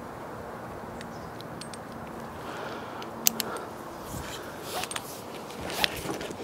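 Climbing rope and gear being handled, with a few sharp metallic clicks and clinks from about halfway through, over a steady low rushing noise.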